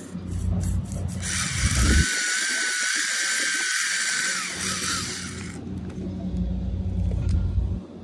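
Small electric motor of a WLtoys 284161 RC car spinning its wheels freely while the car is held in the air: a steady high whine with a slightly wavering tone that starts about a second in and stops about five and a half seconds in. A low rumble runs before and after it.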